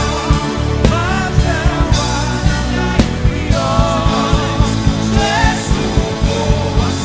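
Live gospel band playing a steady driving beat with drums and bass, with wavering melody lines from a keyboard or backing voices.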